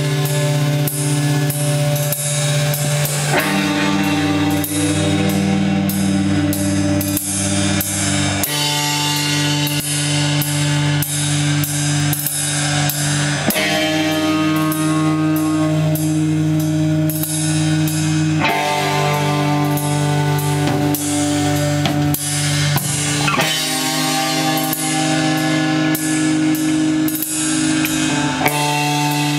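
Black metal band playing live: guitars hold sustained chords that change about every five seconds, over drums with dense, constant cymbal hits.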